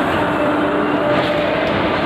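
Passenger train rolling slowly through a station: a steady running noise with a faint hum.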